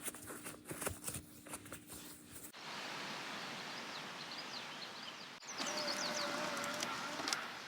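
Outdoor ambience: a steady background hiss with small birds chirping in short calls. It follows a couple of seconds of light clicks and handling noises.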